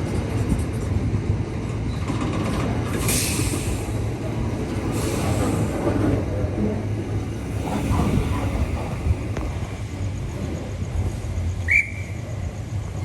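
Queensland Rail suburban train running on the track with a steady low rumble, two bursts of hiss a few seconds in, and a short high squeal near the end.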